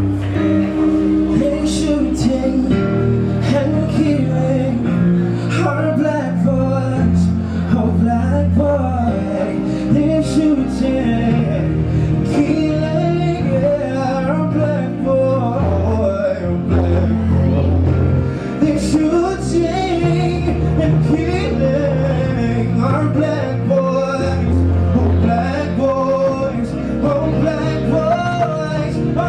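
Live music: a man singing over held keyboard chords, with low bass notes that change every couple of seconds.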